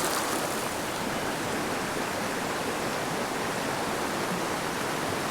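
Steady rushing of a fast-flowing mountain creek over rocks, an even sound without breaks.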